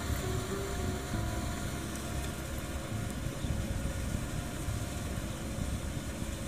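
Kubota tractor's diesel engine running steadily under load as it drags a rotary tiller through wet paddy mud, a low throbbing rumble.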